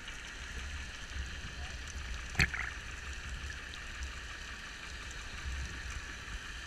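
Underwater ambience picked up by a GoPro in its waterproof housing: a steady low rumble and hiss of the sea with faint scattered clicks. One sharp knock comes about two and a half seconds in.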